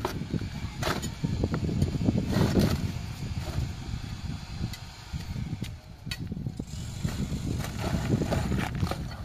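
Steel bar jabbed repeatedly into the concrete top of a block wall, chipping it away with irregular sharp knocks and crunches over a constant low rumble.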